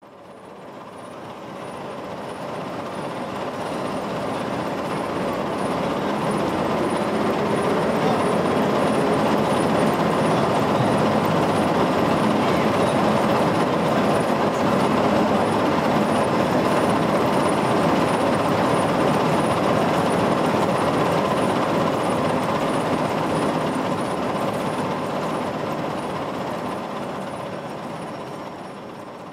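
Single face-milling head of a 1964 TOS Kuřim portal universal milling machine cutting steel: a steady, dense noise of the cutter working through the metal. It fades in over the first few seconds and fades out near the end.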